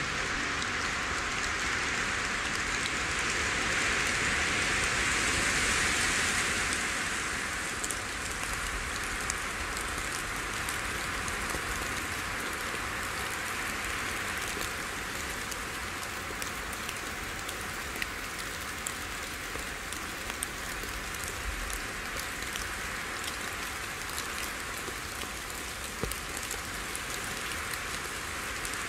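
Small waves washing on a beach: a steady hiss of water, swelling a few seconds in as a wave comes up the shore and easing back, with faint small ticks later on.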